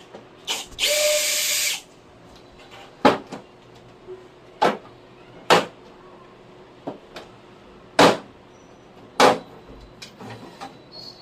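A power drill runs briefly for about a second, then there are five or six sharp knocks and clicks of tools and parts being handled, a second or so apart.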